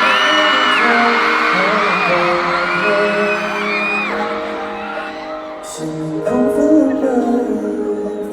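Live pop song intro played through a concert PA, with sustained chords and a crowd of fans screaming over it. The screams thin out after about four seconds, and a few sharp beats come in just before six seconds.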